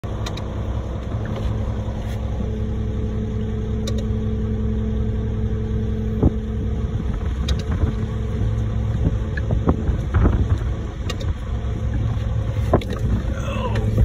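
Diesel engine of a ready-mix concrete truck idling: a steady low rumble with a constant hum, and a few light knocks over it.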